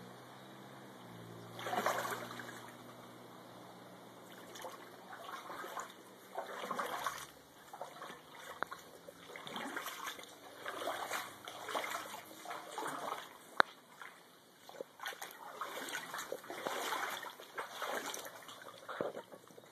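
Footsteps sloshing and splashing through shallow floodwater, in uneven steps starting about two seconds in, with an occasional sharp click.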